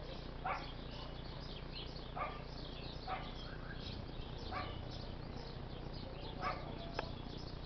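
A dog barking now and then, about five single barks spaced a second or two apart. Faint bird chirps and a steady low background hum run underneath.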